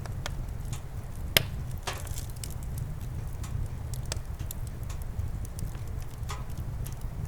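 Campfire crackling with scattered sharp pops, one much louder about a second and a half in, over a steady low rumble.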